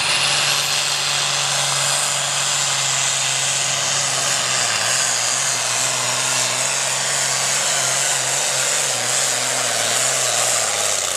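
Pro Farm class pulling tractor's diesel engine running flat out under load as it drags the weight-transfer sled down the track. A high whine climbs in pitch over the first second and then holds, and the low engine note wavers in the second half of the pull.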